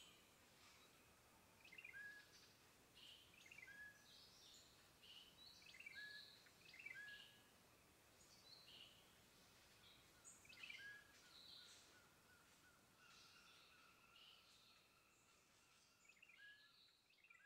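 Faint birdsong: several small birds calling in short, repeated chirps, some sliding down in pitch, coming every second or two, with a steady thin high tone joining in from about halfway through.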